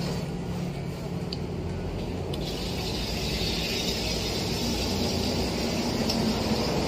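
Steady low rumble of street traffic and stall background noise. A hiss joins it about two and a half seconds in.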